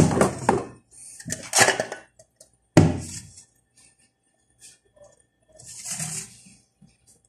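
Dishes and kitchenware handled at a sink: a sharp knock at the start and another about three seconds in, with clattering and scraping between. A brief hiss near the end.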